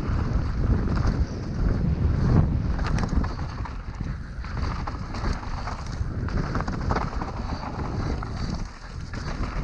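Mountain bike descending a dirt trail at speed: wind rushing over the microphone and tyres rumbling on dirt, with frequent short clatters as the bike rattles over bumps.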